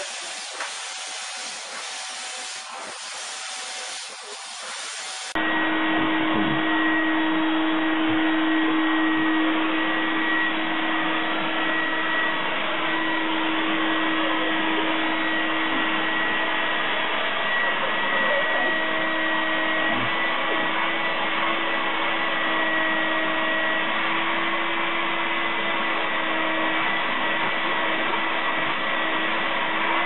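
A steady hiss, then an abrupt cut about five seconds in to a vacuum cleaner motor running steadily, with a constant droning whine.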